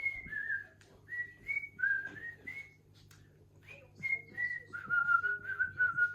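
A person whistling a melody: a single clear tone stepping through short notes, pausing about halfway, then settling into a long held lower note near the end.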